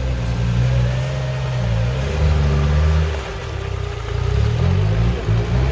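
Off-road 4x4's engine revving under load, its speed rising and falling; it eases off about three seconds in, then picks up again in uneven steps.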